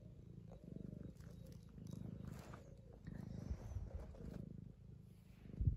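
Young tabby cat purring steadily while being stroked, the purr swelling and easing in waves. A louder low thump near the end.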